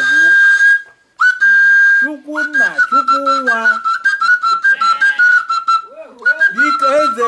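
A high whistle-like tone from a small flute or whistle, held on one note and then stepping between a few nearby notes, with a man's voice chanting or speaking underneath. It breaks off briefly about a second in and again near the end.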